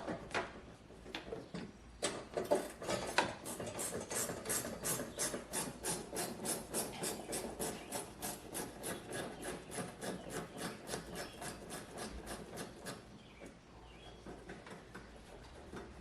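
A few knocks of tools on metal, then a hand ratchet wrench clicking at an even pace, about four or five clicks a second, as a suspension bolt is backed out. The clicking stops near the end.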